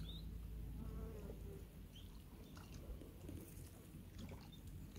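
Faint outdoor ambience: a low rumble with a few short, high chirps, one at the start, one about two seconds in and one near four seconds.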